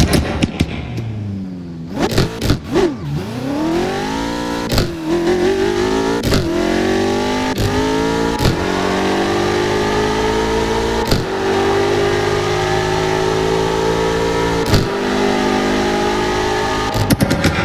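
BMW M5 engine revving and accelerating: the pitch falls for the first two seconds, then climbs in a long rise, broken every one to three seconds by sharp cracks with brief dips in pitch, with a quick cluster of cracks near the end.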